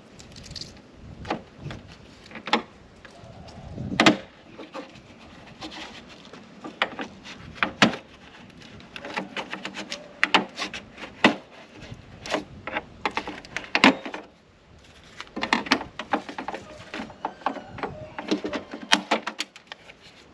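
Irregular clicks, knocks and snaps of a plastic tailgate trim panel being pried off a Ford Bronco's tailgate without a trim tool, its push-in clips popping loose, with runs of quick rattling clicks between the louder snaps.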